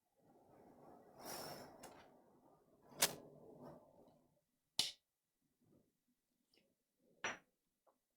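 Close-up handling noises at a repair bench: a rustling, scraping sound of wiping or brushing for the first few seconds, with three sharp clicks or taps of small tools or parts being set down.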